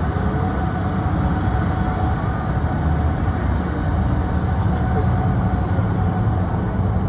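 Boeing 737-800's CFM56-7B jet engines running at taxi power: a steady rumble with a faint held whine above it.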